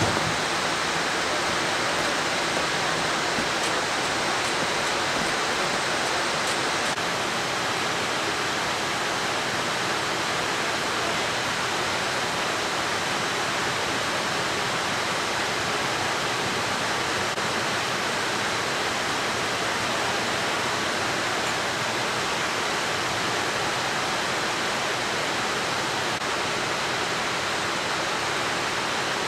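Industrial rope-recycling machinery running with a steady, even rushing noise and a faint high whine.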